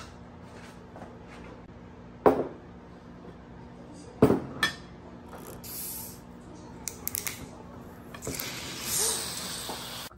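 A glass bottle and glass set down on a table with sharp knocks, about two and four seconds in. Near the end a bottle of sparkling apple cider is opened with a loud fizzing hiss as it foams over onto the table.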